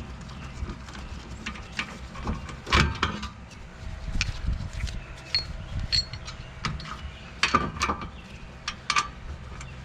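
Irregular metallic clinks and knocks of hand tools and parts being handled during a wheel hub reassembly, with the loudest clatter about three seconds in and a quick cluster near the end, over a steady low rumble.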